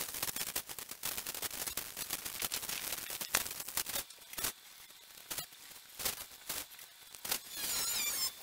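Chickens scratching and pecking through dry teak-leaf mulch: a quick run of dry leaf crackles and rustles, thinning to scattered single crackles about four seconds in. A short high warbling bird call near the end.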